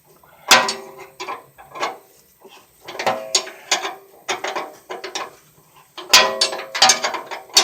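Hand ratchet clicking in repeated strokes while backing out a 22 mm control-arm bolt: short runs of rapid clicks with brief pauses between swings of the handle. The bolt is turning freely, not seized.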